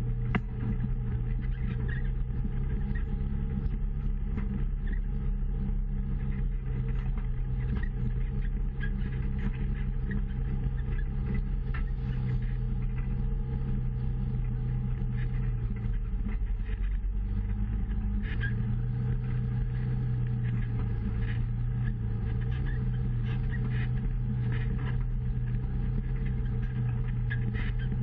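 Off-road utility vehicle engine running steadily at low speed over a rough trail. Its note drops briefly a little past the middle and then picks back up. Frequent small knocks and rattles come from the body and suspension over rocks.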